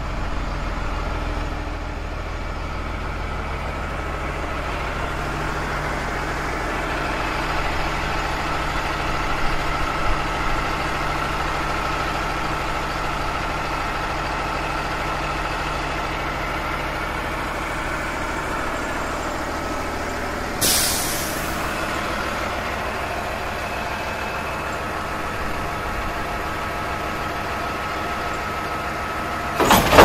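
Garbage truck's engine running steadily while its hydraulic dumpster arm works, with a steady whine over the engine. About two-thirds of the way through there is a short air-brake hiss, and near the end a loud metallic clatter as the dumpster is handled.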